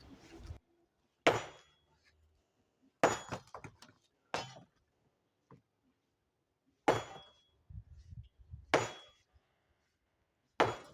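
Heavy hammer blows breaking up the brick and cement masonry of an old bread oven: six hard strikes about every two seconds, each followed by a brief clatter of falling rubble.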